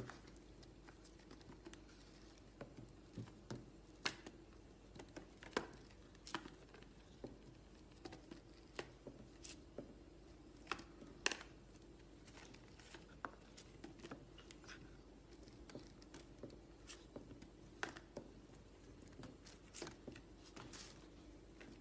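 Faint, irregular clicks and crinkles, a few every couple of seconds, over a low steady room hum.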